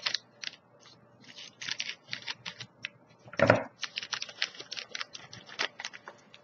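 A plastic bag of Wise popcorn crinkling in quick, crackly rustles as it is handled and lifted out of a cardboard snack box, with one louder thump about three and a half seconds in.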